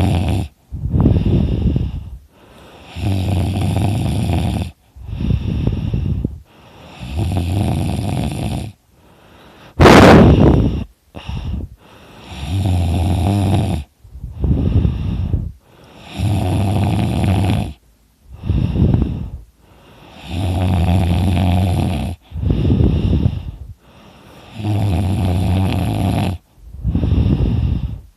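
A sleeping man's loud, rattling snoring. The snores come in pairs, a shorter rattle followed by a longer one, about every four seconds. About ten seconds in there is one brief, sharp sound that is louder than the snores.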